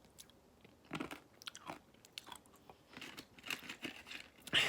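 A person chewing a mouthful of yogurt with crunchy peanuts and chocolate pieces, giving irregular crunches and mouth noises, with a louder burst near the end.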